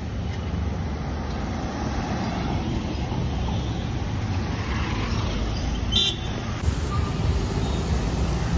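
Street traffic: several cars driving past with steady engine and tyre noise. A sharp click comes about six seconds in.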